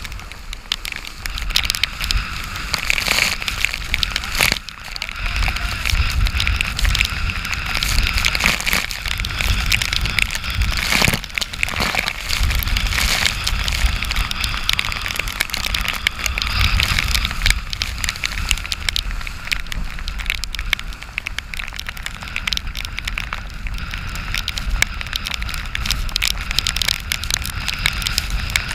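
Rain and spray pattering on a deck-mounted camera's housing, over wind rumbling on the microphone and water rushing along the hull of a Class 40 racing sailboat sailing hard in a storm.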